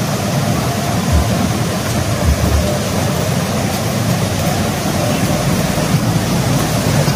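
Loud, steady rushing of falling water.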